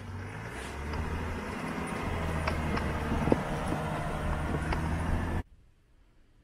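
Land Rover Defender engine running at low revs while towing an off-road caravan down a sandy slope, with a few sharp clicks from the rig. The sound cuts off suddenly about five seconds in.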